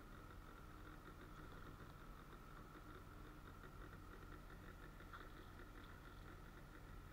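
Near silence with a faint, steady low hum.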